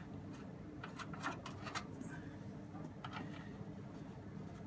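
Zalman M1 mini-ITX PC case being handled as its side panel is worked off: a run of light clicks and scrapes over the first two seconds, then a few more a little after the three-second mark.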